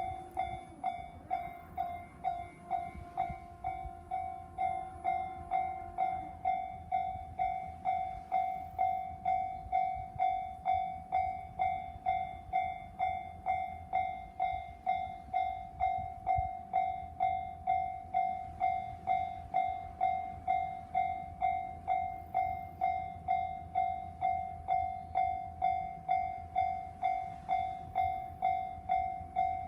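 Japanese railway level-crossing warning bell ringing in an even, repeating clang, about one and a half strikes a second. A separate held tone sounds for about five seconds near the start, over a low rumble.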